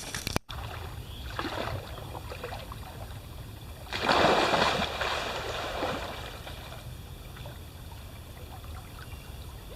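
A person splashing into a river to swim, water sloshing around the body, with a louder splash about four seconds in that dies away over a couple of seconds.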